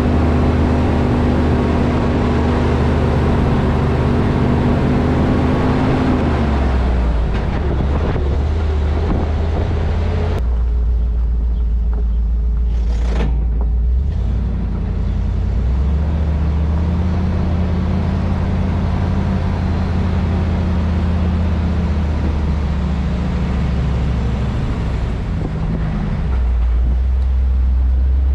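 Grain truck engine running steadily under way, its engine note changing several times.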